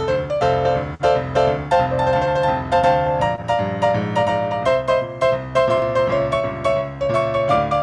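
Solo piano playing a postlude: a steady flow of struck notes over a moving bass line.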